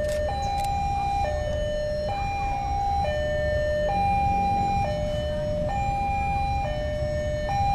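Railway level-crossing warning alarm: an electronic two-tone signal alternating steadily between a lower and a higher note, each held just under a second, sounding as a train approaches the crossing.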